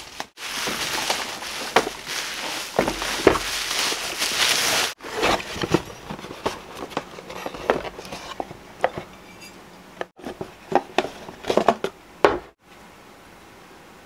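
Unpacking by hand: plastic bubble wrap crinkling as it is cut with scissors and pulled open, then cardboard and paper packaging rustling with scattered light clicks and knocks as a ceramic dish is lifted out and handled.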